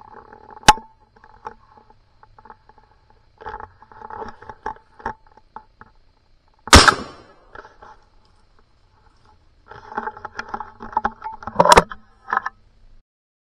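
.410 shotgun fired once about seven seconds in: a sharp report with a short echo tail, the loudest sound here. A single sharp crack comes about a second in, and another loud knock near the end, among crunching and rustling of dry leaf litter underfoot.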